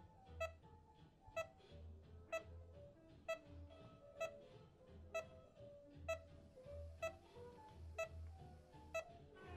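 Bedside patient heart monitor beeping evenly about once a second, the pulse tone of a steady heartbeat, over soft sustained music.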